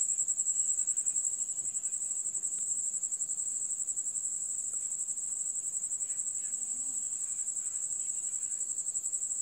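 An insect trilling steadily at a high pitch in rapid, even pulses.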